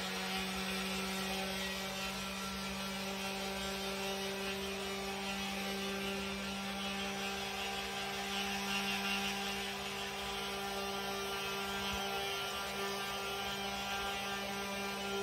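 Corded orbital sander with 220-grit paper running steadily against chalk-painted wood to distress the paint, a constant humming drone. A brighter sanding hiss swells about eight to ten seconds in.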